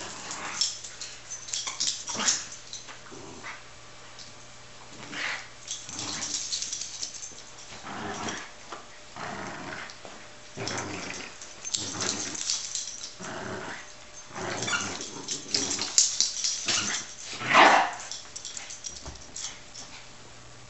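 Small dogs, a miniature schnauzer and a Yorkshire terrier, growling and barking in play as they fight over a toy, in irregular short bursts, the loudest near the end.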